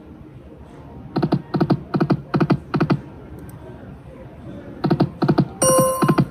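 Light & Wonder Quick Hits Explosion video slot machine's electronic reel-stop sounds: five short pitched clunks in quick succession as the reels land one by one, then another run of stops near the end with a brief held electronic tone.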